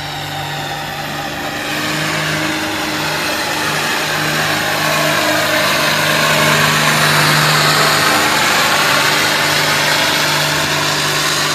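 Farm stock tractor engine running hard under load on a pulling run, steadily getting louder over the first several seconds and easing only slightly near the end.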